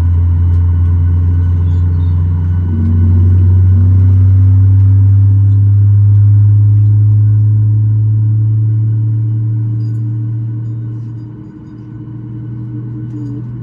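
Low, steady drone of a Boeing 737 MAX 8's CFM LEAP-1B engines heard from inside the cabin, rising slightly in pitch and level about three seconds in and dropping off briefly near the end.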